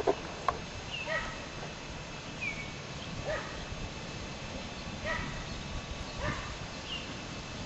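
A dog yipping about four times, a second or two apart, with a few short, high falling bird chirps between and two sharp clicks right at the start.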